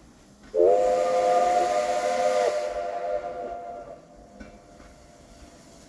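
Steam locomotive whistle blowing one long chord of several notes, with a hiss of steam, starting about half a second in with a brief upward slide in pitch. The lowest note cuts off first and the upper notes fade out a second or so later.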